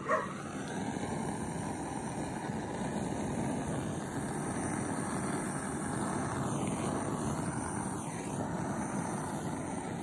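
A handheld butane blowtorch lights with a sharp click and then burns with a steady hiss. It is being played over wet acrylic pour paint to bring out patterns and cells in the surface.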